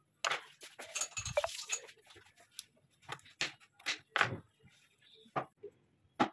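Kitchen knife chopping and tapping on a wooden cutting board: a string of separate knocks with pauses between, several quick ones bunched together about a second in.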